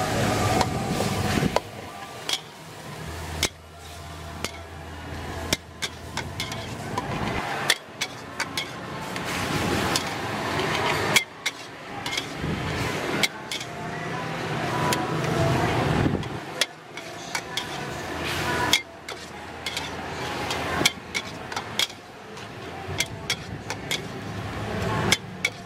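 Metal spatula scraping and clanking against a steel wok while stir-frying pork and long beans in red curry sauce, with irregular sharp clanks over a steady sizzle.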